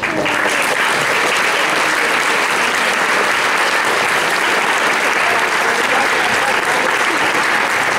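Audience applauding: dense, steady clapping that breaks out suddenly at full strength.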